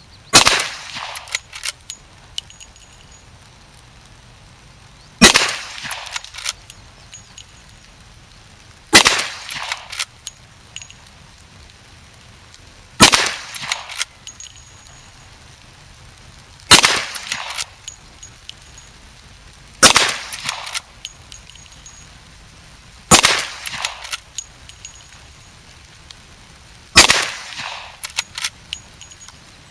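Eight shots from a Marlin 1894 lever-action carbine in .357 Magnum, fired slowly one at a time about 3 to 5 seconds apart. Each shot is followed within a second by a quick run of metallic clicks as the lever is cycled to eject the case and chamber the next round.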